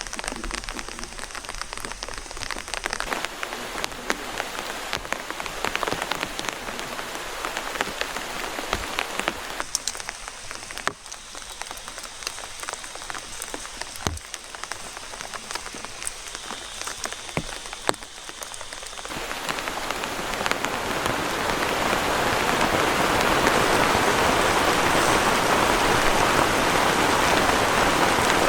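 Rain falling, with single drops striking close by heard one by one over a steady hiss. About two-thirds of the way in it swells into a dense, louder, even downpour.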